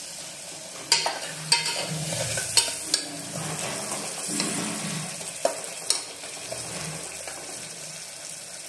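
Tomatoes and spice masala frying on low heat in an open pressure cooker, sizzling steadily, while a metal spatula stirs it and scrapes and knocks against the pot several times.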